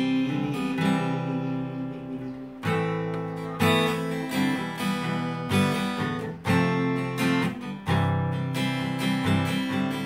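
Acoustic guitar strummed, with a new chord struck and left ringing about every second; no singing.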